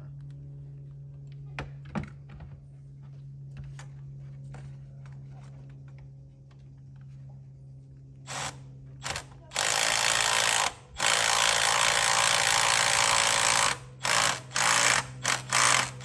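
A steady low hum, then a power tool run in bursts: two short ones, two longer runs of one to three seconds, then a quick string of short trigger pulls near the end.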